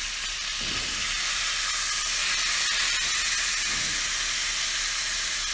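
Bone-in venison neck roast searing in smoking-hot canola oil in a cast iron skillet: a steady sizzle that gets a little louder about a second in.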